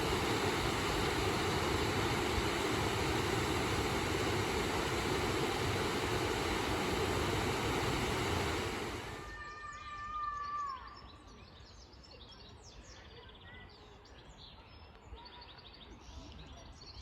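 Rushing water of a small river waterfall, a steady hiss that cuts off abruptly about nine seconds in. After that comes a short held whistling tone, then quiet with small birds chirping.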